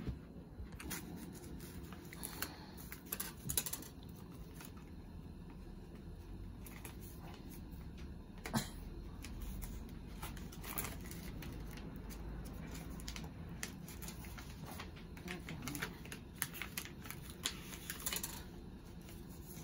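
Paper envelope being handled and opened: soft rustles with scattered small clicks and taps, a sharper tap about eight seconds in and a cluster of rustles near the end.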